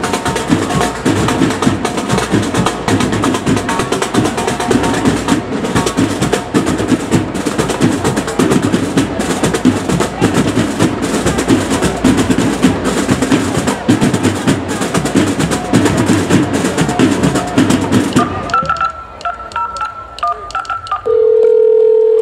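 A school drum corps of snare, tenor and bass drums playing a fast, dense cadence with many crisp strokes. The drumming stops abruptly about eighteen seconds in, followed by a faint, broken high tone and, near the end, a loud steady tone.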